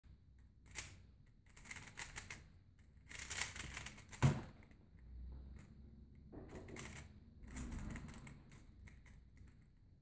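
Angstrom Valk 3 Elite M, a magnetic 3x3 speed cube, being turned very fast: bursts of rapid plastic clicking and clacking from the layers snapping into place, in several quick runs with short pauses, and one louder knock about four seconds in.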